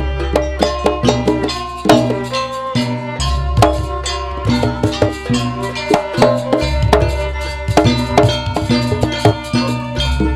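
Jaranan gamelan accompaniment: hand-drum (kendang) patterns and struck metal pitched percussion playing a busy, steady rhythm, with a deep gong stroke roughly every three and a half seconds.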